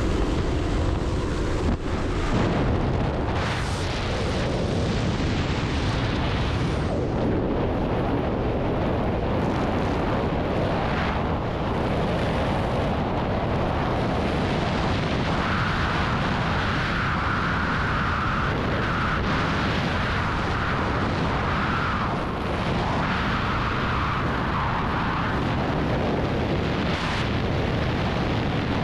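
Steady, loud wind rush of skydiving freefall blasting across the camera's microphone, after a short stretch of jump-plane door noise at the very start. A higher hiss rises over the middle of the fall.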